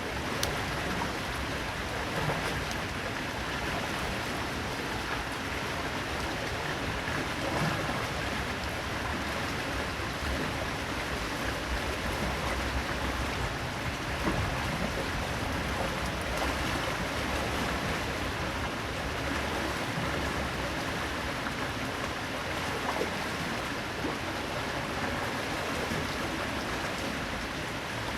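Medium-sized waterfall: water falling and splashing in a steady, unbroken rush.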